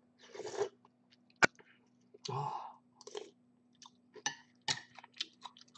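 Close-miked eating sounds of pork noodle soup: sipping broth from a spoon and chewing, in short bursts with small clicks, and one sharp click about a second and a half in.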